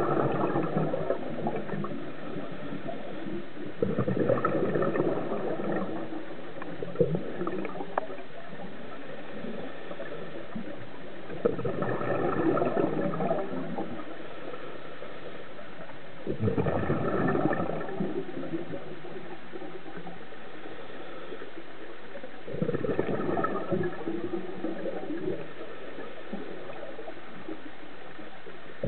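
Scuba diver's exhaled breath bubbling out of the regulator, heard underwater: four long bursts of bubbles several seconds apart, with a steady low hiss between them.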